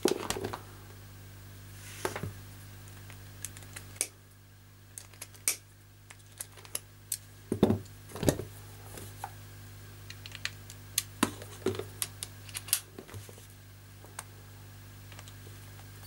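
Irregular small clicks and taps of metal screwdriver bits being pulled from and pushed back into a plastic bit holder and swapped in a cordless drill-driver, with a couple of louder knocks about halfway through.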